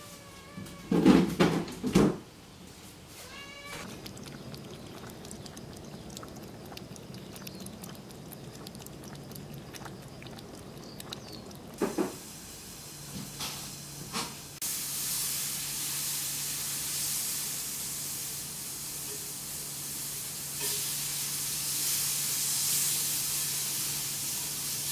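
Tabby kitten meowing in short calls, with a few loud knocks about a second in. A steady hiss and low hum come in during the second half.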